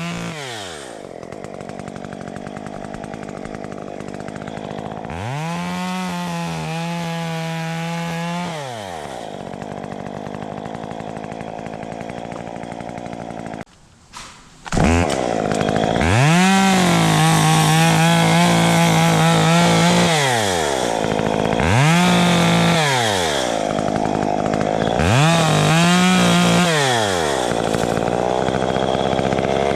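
Two-stroke Stihl chainsaw idling and revved up to full throttle and back down about six times while cutting palm fronds. About halfway through the sound drops out briefly.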